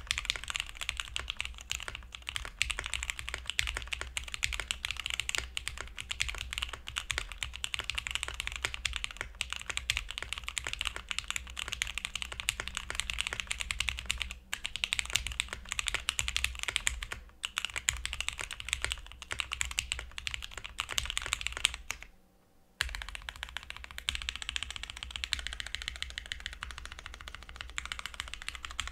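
Fast continuous typing on a Piggy60 60% custom mechanical keyboard with lubed and filmed SP Stars Meteor White switches and no foam, giving a clacky keystroke sound. The typing breaks off briefly about three quarters through, then resumes as lighter, more spaced keystrokes near the end.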